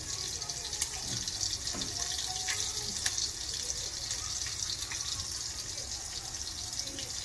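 Breaded shrimp frying in hot olive oil: a steady sizzle with scattered crackles and pops.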